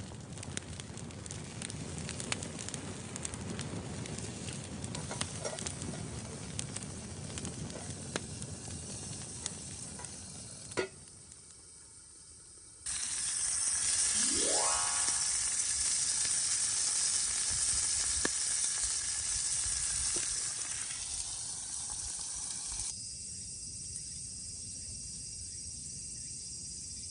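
Tandoori chicken frying in a frying pan: a steady sizzle with scattered pops and crackles. About 13 s in, a louder, brighter hiss takes over for about ten seconds, then settles back to a quieter, steady sizzle.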